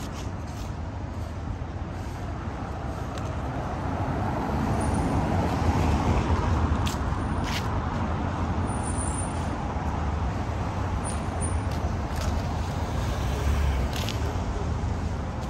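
City street traffic: a steady hum of cars with one vehicle passing close, swelling about four to seven seconds in, and a few short sharp clicks.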